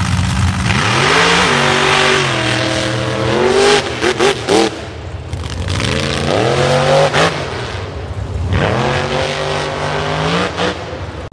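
The 1,500-horsepower Intruder 2.0 mega truck's engine revving hard as it accelerates over dirt hills. The pitch climbs and levels off again in several pushes, with a few short, sharp revs around the middle.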